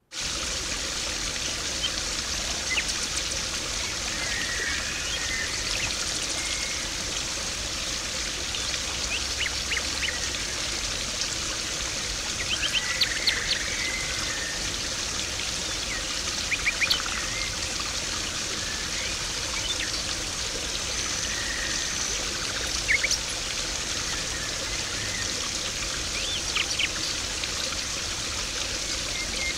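Garden pond water splashing and trickling steadily, with small birds chirping in short clusters every few seconds.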